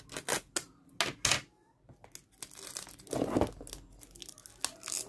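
Plastic shrink wrap on a smartwatch's cardboard retail box being peeled and torn off, crinkling. A few sharp clicks of the box being handled come first, then a longer stretch of crinkling and tearing that is loudest about three seconds in.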